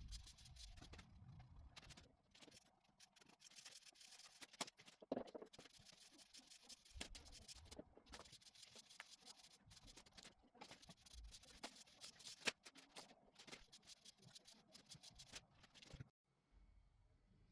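Faint hand work on the oak furniture: scratching and rubbing with scattered small clicks and knocks, stopping shortly before the end.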